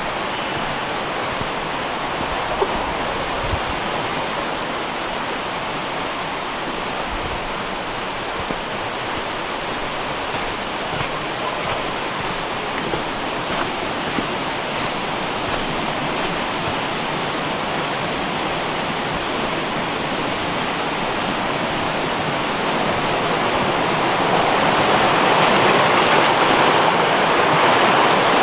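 A small brook running steadily, louder about three-quarters of the way through as the water comes close. A couple of soft thumps sound within the first several seconds.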